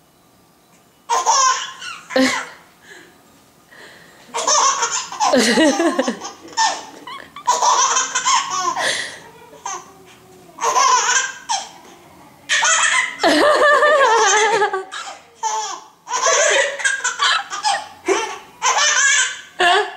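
A baby laughing hard in repeated fits of high, wavering laughter with short pauses between them, starting about a second in.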